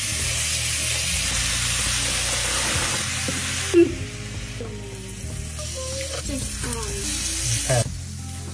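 Diced zucchini sizzling in a frying pan, a loud steady hiss that stops abruptly about four seconds in. After that only a fainter hiss remains under background music.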